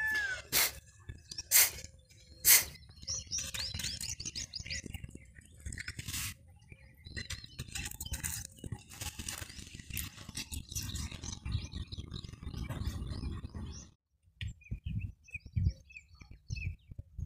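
Wild birds chirping repeatedly over a low outdoor rumble, broken by a few loud, sharp sounds in the first few seconds. The sound then drops abruptly to fainter chirping with a few low thumps.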